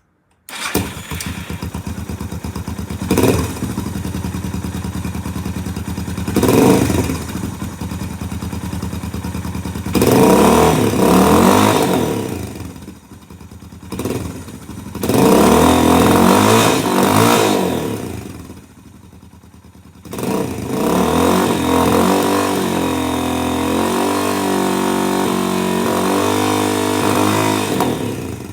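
Suzuki DR650 single-cylinder four-stroke engine running through a custom exhaust with a dB-killer insert, idling with a couple of quick throttle blips and then two longer revs. It drops away briefly, then settles into a steady, faster idle for the last third.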